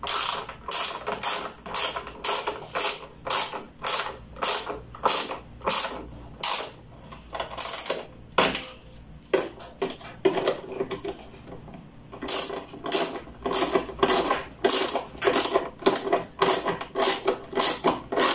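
Socket ratchet wrench clicking in repeated short strokes as it turns a nut on a washer-dryer's heater housing, with a brief pause about halfway through.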